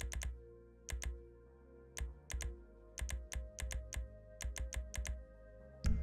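About twenty short, sharp clicks, singly and in quick runs of two to four, from scrolling down a video game's graphics settings menu, over faint steady menu music.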